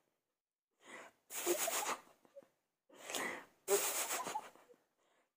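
Four short, breathy vocal sounds, huffs and puffs of breath about half a second to a second long, the first one faint.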